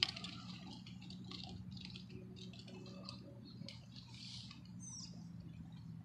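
Faint small-bird chirps and twitters over a steady low hum, with a light click at the start.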